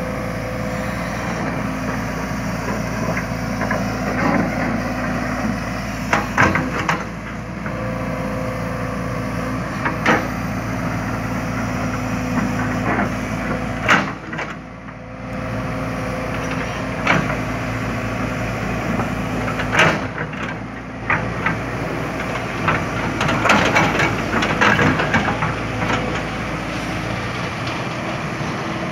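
JCB tracked excavator's diesel engine running steadily while it digs. Sharp knocks and clatters of the steel bucket against stones and gravel are scattered throughout, with a busier run of them near the end.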